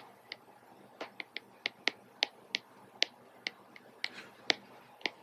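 Stylus tapping and clicking on a tablet as words are handwritten: a string of short, sharp, irregular clicks, a few a second.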